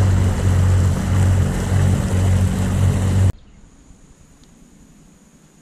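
Motorboat engine running steadily under way, with water and wind noise rushing past; it cuts off abruptly about three seconds in, leaving quiet outdoor background with a faint steady high whine.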